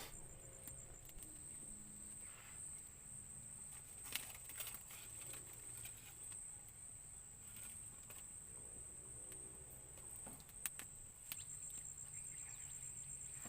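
Insects trilling steadily at a high pitch, with a few faint clicks and knocks now and then.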